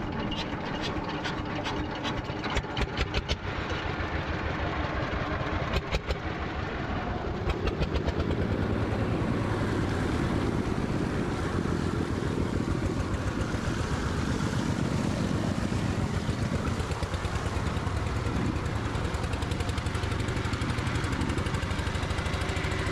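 Fishing boat's inboard diesel engine being started: irregular knocks and short bursts of firing for the first several seconds, then it catches about eight seconds in and runs steadily with a fast, even beat.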